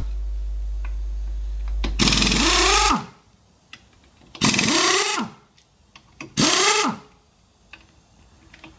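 Pneumatic impact wrench undoing the 17 mm wheel bolts in three short bursts, each a hiss of air with a whine that rises and then falls as the motor spins up and runs down. A steady low hum runs under the first few seconds.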